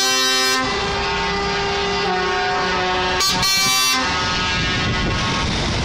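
Truck air horns sounding as a convoy of tractor units passes: a short loud blast at the start, a quieter held horn tone, then another loud blast a little over three seconds in. After that the engines and tyres of the passing trucks run on.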